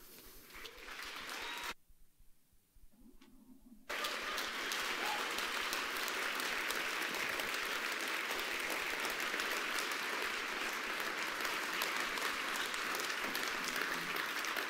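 Audience applauding. A faint start gives way to a short lull, then the full clapping cuts in abruptly about four seconds in and holds steady.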